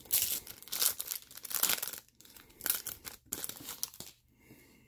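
Foil wrapper of a 2018 Elite trading card pack being torn open and crinkled, in a run of sharp rustling bursts that die away about four seconds in.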